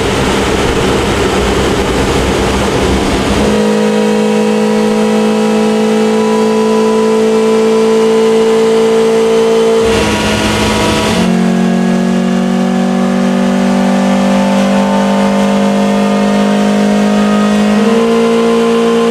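Mazda Miata's Megasquirt-tuned 1.6-litre four-cylinder running hard under load on a chassis dyno, its drive wheels turning the rollers. A rougher, noisier sound gives way after about three and a half seconds to a loud, nearly steady engine note, broken briefly about halfway through.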